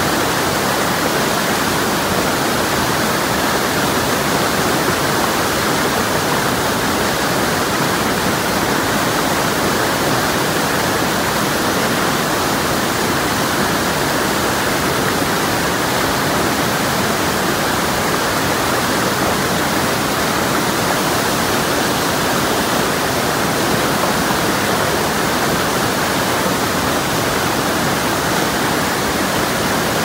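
A river in flood after heavy rain, its muddy water rushing over rapids in a loud, steady, unbroken rush.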